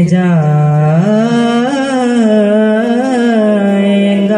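Qawwali singing: male voices hold one long, drawn-out note that dips low, then rises and wavers in pitch without a break.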